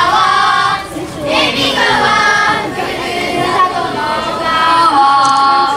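A group of schoolchildren singing together, holding long notes, the last one held near the end.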